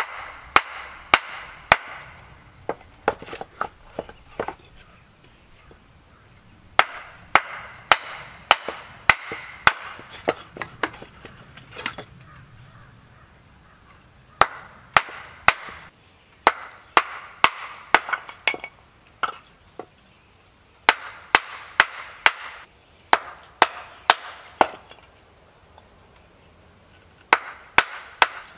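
Wooden mallet striking the back of a hatchet, driving the blade down through a wooden block to split off thin strips. Sharp wooden knocks come about two a second in runs of several strikes, with short pauses between the runs.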